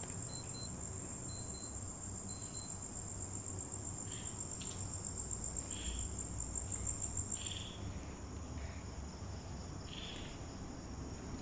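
Night insects trilling: one steady, high-pitched shrill, with a few brief soft sounds scattered through it.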